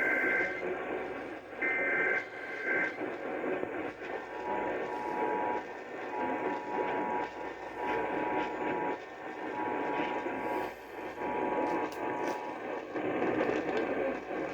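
Emergency Alert System test received over a noisy radio channel: the last of the SAME digital header bursts in the first three seconds, then the two-tone EAS attention signal from about four seconds in, breaking up with short gaps and stopping a couple of seconds before the end, all over a steady static hiss.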